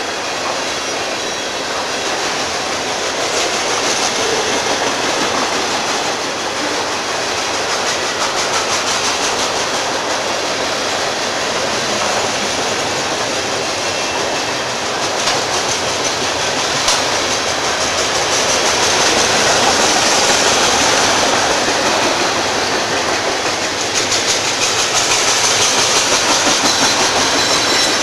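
A train's cars rolling past without a break: a steady rush of steel wheels on rail with a rhythmic clickety-clack over the rail joints.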